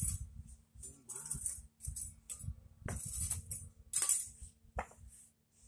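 Concrete pavers being handled and set, the stones clinking and knocking against one another, mixed with short scraping strokes of a small hand tool on paver and sand.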